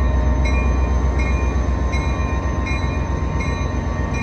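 Diesel locomotive engine running with a steady low rumble as the locomotive creeps slowly. Its bell rings about once a second over the rumble.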